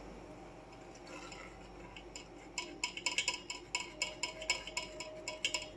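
Metal spoon scraping and clicking against a metal mesh sieve while pressing tomato and carrot puree through it. Quiet for the first two seconds or so, then a quick, uneven run of clicks and scrapes.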